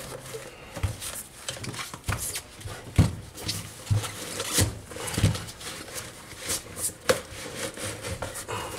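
Hands pulling the padded liner out of a Micro MT Plus inline skate and turning over its hard plastic shell: fabric rubbing and scraping, with irregular knocks and clicks of plastic, the sharpest about three seconds in.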